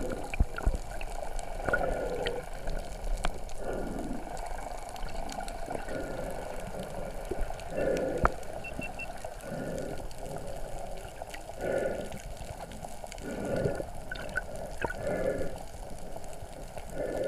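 Underwater sound through a submerged camera's housing: muffled water sloshing and swishing, swelling in surges every second or two, with a few faint higher tones now and then.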